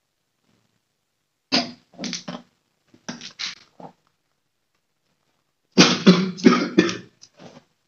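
A young man coughing in a fit: short coughs in ones and twos at first, then a louder run of coughs about six seconds in.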